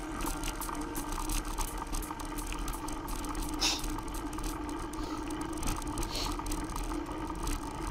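Mountain bike rattling over a rough dirt track, heard from a camera riding along on the bike or rider: a steady run of small clicks and knocks.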